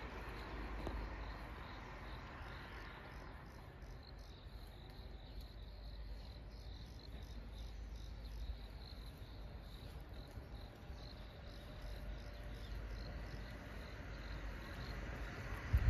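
Insects, likely crickets, chirping in a thin, high, evenly repeated trill that becomes clearer a few seconds in. A steady low traffic rumble runs underneath, and there is a brief low bump near the end.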